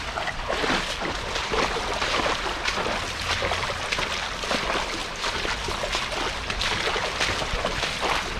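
Shallow creek water splashing and sloshing, a run of many small splashes one after another, from wading and scooping for fish in the water.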